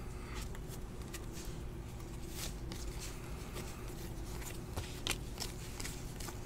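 A hand-held stack of 2017 Panini Playoff football trading cards being flipped through card by card, with irregular light flicks and slides of card against card.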